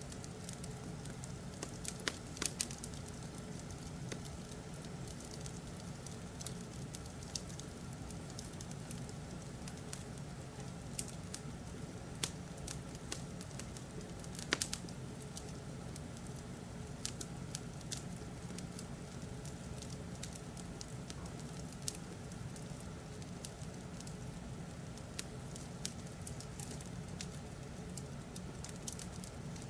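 Wood fire crackling: irregular sharp pops and snaps over a steady low hum.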